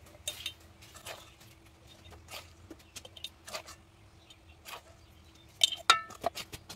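A metal spoon clinking and scraping against a metal bowl and a glass jar as chili pickle is spooned into the jar. Scattered soft clicks come about once a second, then a few sharper clinks near the end, one ringing briefly.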